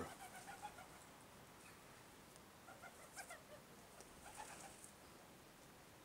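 Faint bird calls with a pigeon cooing softly, a few short calls spread over several seconds against a quiet background.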